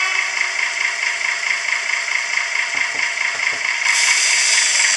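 Sound-decoder loudspeaker of an REE model Moyse locotracteur playing a diesel engine running steadily while the locomotive stands still. A few faint clicks come about three seconds in, and a loud burst of air hiss starts near the end.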